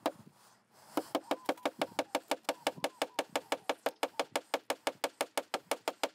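Small hammer tapping a tack through roofing felt into a wooden baseboard. The taps are rapid, light and even, about six a second, and start about a second in after a short pause.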